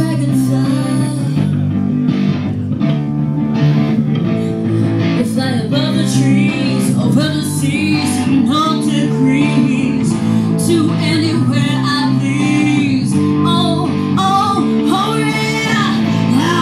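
A live rock band playing: electric guitar and bass guitar through amplifiers, with a woman singing into a microphone.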